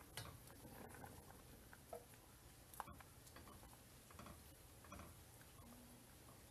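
Near silence with a few faint wet taps and drips as boiled pig intestines are lifted by hand out of a pot of cooking water.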